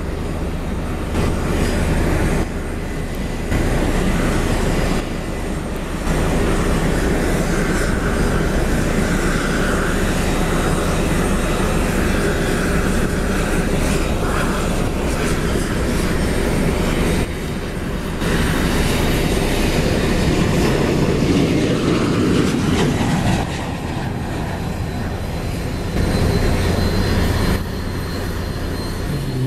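Jet airliner engines running, a steady loud rush of engine noise with several abrupt jumps in level.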